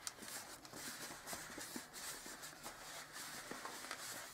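Faint handling noise of gloved hands rubbing and pressing latex modelling balloons, with light scattered ticks.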